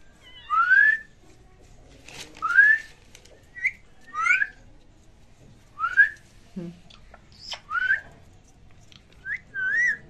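A series of about seven short rising whistles, each sliding up in pitch, repeated every second or two.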